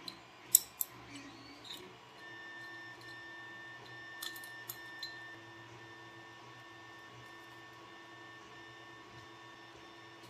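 Sharp clicks and knocks of small metal parts as an RC winch is seated on a metal crawler bumper by hand, the loudest a little after half a second in and a few more around four to five seconds. Under them, from about two seconds in, a 3D printer's stepper motors give a steady whine of several held tones.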